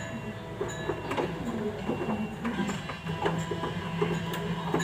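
Scattered light clicks and taps of hands handling parts at a motorcycle's handlebar and tank area, with a faint steady hum joining about three seconds in.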